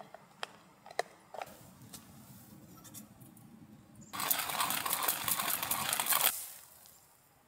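A few light clicks and a bag crinkling. Then, about four seconds in, a hand-cranked coffee grinder crunching beans for about two seconds, the loudest sound, before it trails off.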